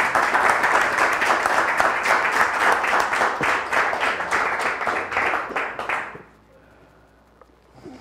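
Audience applauding, many hands clapping at once; the applause dies away about six seconds in.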